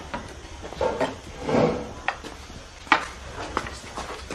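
A few sharp taps of a walking cane on tiled paving, with soft shuffling footsteps between them.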